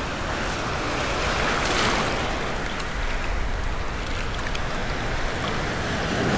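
Gulf surf breaking and washing along the beach, with wind buffeting the microphone; the wash swells twice, about two seconds in and again near the end.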